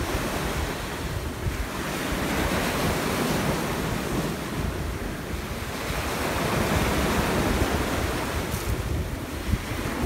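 Small waves breaking and washing up a sandy beach, the wash rising and falling as each wave comes in, with wind buffeting the microphone.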